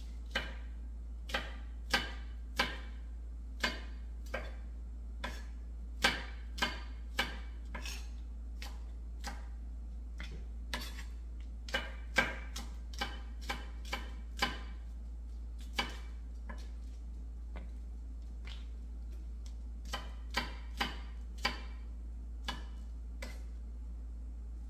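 Kitchen knife chopping green onions on a thin plastic cutting board: sharp, irregular taps, often a few in quick succession, then short pauses. A steady low hum runs underneath.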